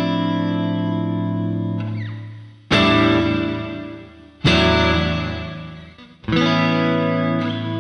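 Clean electric guitar chords played through an Empress Reverb pedal on its Freezification setting. A held chord sustains as a steady, frozen wash and fades about two seconds in. Three more strums follow, each about two seconds apart, ringing out and sustaining before it fades.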